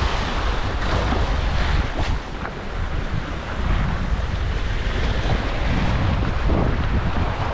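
Sea waves washing and splashing against the stone blocks of a rock jetty, with wind buffeting the microphone in a steady low rumble.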